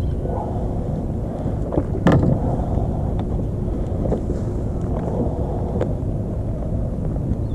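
Steady low rumble on the microphone, with a sharp knock about two seconds in and a few faint clicks later, as a fishing rod and spinning reel are handled in a plastic kayak.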